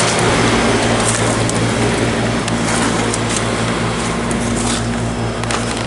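Outdoor heat pump units running: a steady compressor hum under the rush of the condenser fans. Short crunching footsteps crackle over it now and then.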